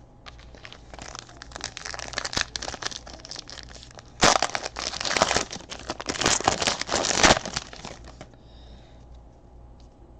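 Crinkly foil trading-card pack wrapper being torn open and handled, loudest in the middle seconds before it stops.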